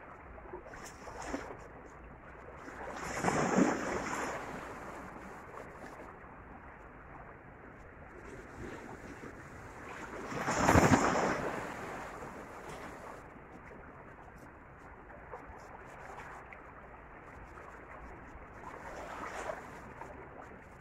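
Sea waves washing against shoreline rocks: a steady wash of surf, swelling twice into a louder surge that rises and falls over a couple of seconds, a few seconds in and again about halfway through.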